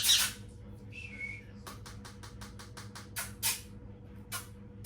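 A small green parrot's squawk ends at the start, and about a second in it gives a short high chirp. Then come quick sharp clicks, about five a second for two seconds, and one more near the end, while the parrot is being hand-fed.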